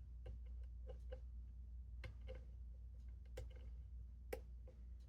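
Faint, irregular small clicks of a lock pick working the pins inside a brass pin-tumbler padlock with a Schlage keyway, with one sharper click about four seconds in.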